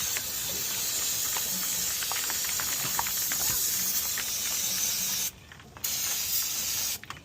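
Aerosol can of brake cleaner spraying: a steady hiss that breaks off about five seconds in, resumes briefly, and stops near the end.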